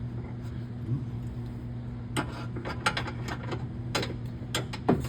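Irregular sharp clicks and taps of parts being worked into place as a bed latch bracket is fitted, starting about two seconds in, over a steady low hum.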